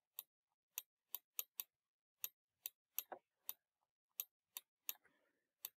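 Stylus tip tapping on a graphics tablet during handwriting: about fifteen short, sharp clicks at uneven spacing, a few a second, one for each pen stroke.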